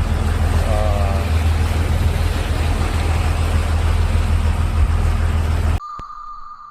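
Boat engine running steadily, a deep hum under a broad hiss. It cuts off abruptly near the end, giving way to a quieter steady high tone with faint ticks.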